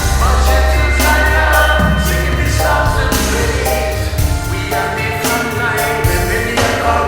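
Gospel-style song with choir-like sung vocals over a steady bass and beat.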